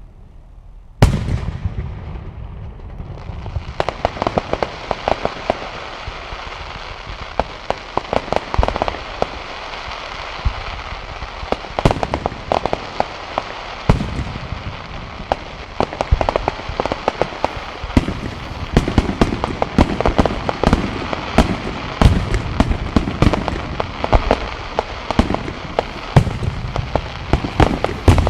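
Fireworks display: a single loud boom about a second in, then from about four seconds on a dense run of crackling and rapid pops broken by repeated louder booms.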